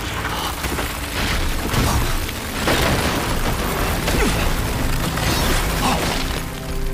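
Fantasy-battle sound effects of ice magic: a run of heavy booming impacts with crashing and shattering, as of giant ice crystals breaking apart. Several big hits come about a second apart over a dense rumble.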